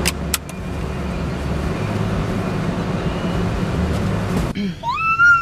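Car cabin noise, a steady low rumble from the running car, with two sharp clicks right at the start. Near the end it cuts off abruptly and a young child gives a high, gliding squeal.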